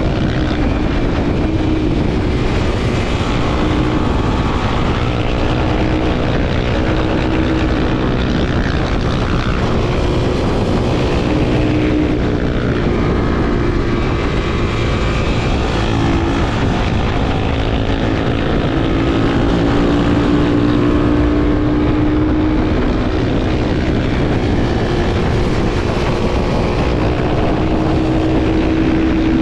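Honda XR250 Tornado's single-cylinder four-stroke engine running steadily while riding, its pitch rising and falling a little with the throttle.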